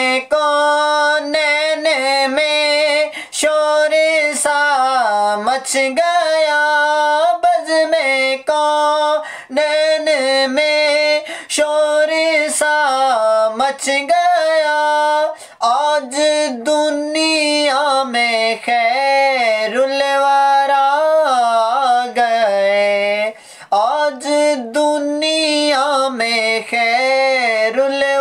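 A man reciting a naat, singing unaccompanied in a high voice with long held, ornamented notes, breaking off briefly for breath between lines.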